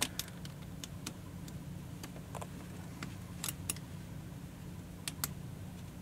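Scattered light metallic clicks and ticks from the Securemme K5 dimple lock cylinder and its key being handled and turned while working at the rear retaining clip, over a faint steady hum.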